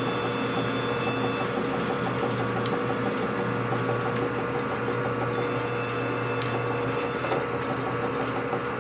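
Metal lathe running steadily with a hum and a fast, even ticking. A faint high electronic ring comes twice, at the start and about five and a half seconds in: a phone ringing.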